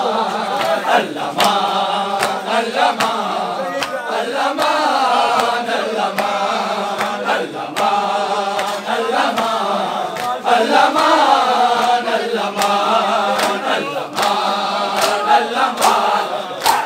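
A group of men chanting a noha, a Shia lament, together in a sustained, swaying melody, crossed throughout by sharp, irregular slaps of bare-handed chest-beating (matam).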